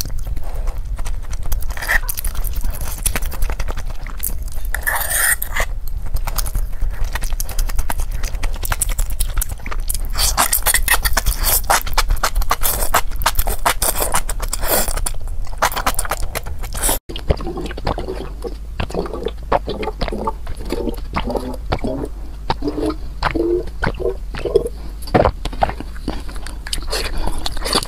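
Close-miked eating sounds: wet chewing and slurping of enoki mushrooms in spicy chili sauce, with light fork clinks. A little past halfway the sound changes abruptly to a different stretch of chewing.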